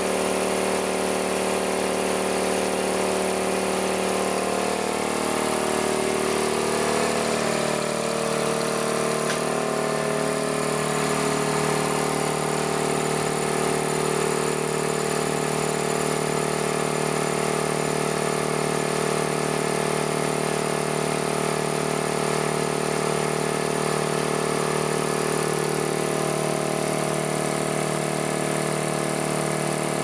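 Harbor Freight Central Pneumatic 2 HP 29-gallon oiled cast-iron air compressor (model 68127) running steadily, its electric motor driving the pump to fill the tank. Its hum shifts in pitch over the first several seconds, then holds even.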